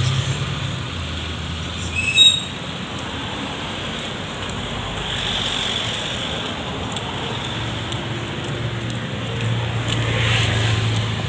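Steady street traffic noise with a low engine rumble that grows a little louder near the end, and one brief, sharp high-pitched sound about two seconds in.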